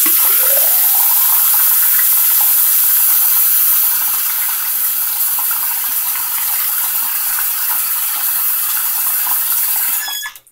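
Bathroom sink faucet running a steady stream of water straight into the open drain, turned on at the start and shut off near the end, a little softer after about four seconds. The faucet is being run to test the drain after a baking soda and vinegar unclogging, and the drain is still not taking water as fast as hoped.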